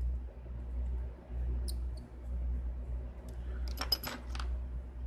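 Small clicks of a precision screwdriver working the phone's tiny screws, then a quick cluster of clicks about four seconds in as the gold-tipped Y-tip screwdriver is set down upright on the silicone mat. A low steady hum sits underneath.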